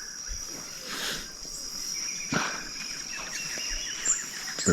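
Outdoor natural ambience: a steady high-pitched insect drone, with scattered bird chirps and trills over it.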